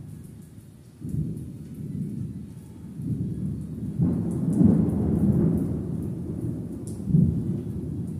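Thunder rumbling in rolling waves, building to its loudest about halfway through and swelling once more near the end.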